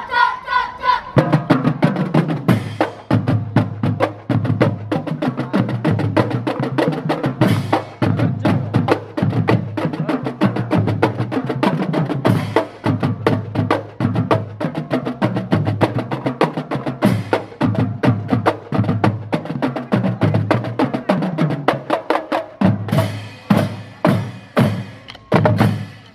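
Children's marching drum line (multi-tenor drums, snare drums, bass drums and marching cymbals) playing a fast, dense drum cadence. Near the end it breaks into a few separate accented hits and stops.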